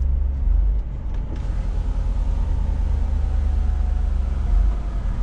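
Scania S500 truck's engine and drivetrain running at low speed, heard from inside the cab as a steady deep hum.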